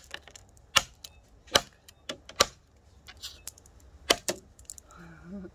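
Hand-forged steel chopper blade striking a wooden log in a series of sharp chops, about one every 0.8 seconds, with two close together about four seconds in.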